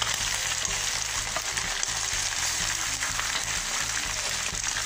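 Chicken pieces frying in hot oil in a kadai, a steady, dense sizzle; the chicken is fried through and ready to be lifted out.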